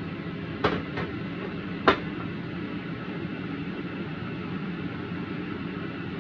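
Three sharp metal knocks, a spatula striking a stainless steel wok, about half a second, one second and two seconds in. The last knock is the loudest. Under them runs a steady hiss of stir-frying.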